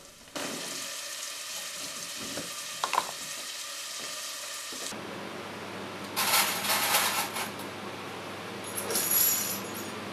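A steady hiss with a single click, then, after a change, a couple of seconds of clattering. Near the end comes a short bright clink as glass lids and metal clips are handled on glass preserving jars.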